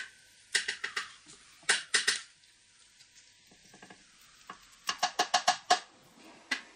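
Filled sausage casing squeaking and crackling as it is twisted into links by hand: short clusters of sharp clicks about half a second in and around two seconds, then a quick run of six or so near five seconds.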